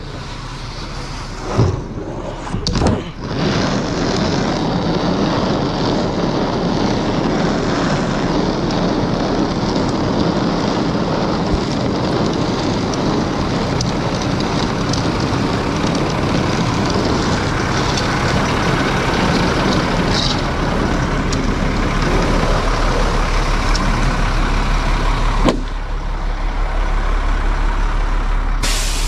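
Truck-mounted crane's engine running steadily and loudly, coming up about three seconds in after a couple of knocks.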